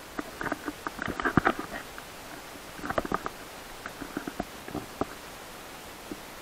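Irregular knocking and scraping of an action camera being jostled as it moves along a rough dirt trail, in short clusters about a second in, around three seconds, and again near five seconds.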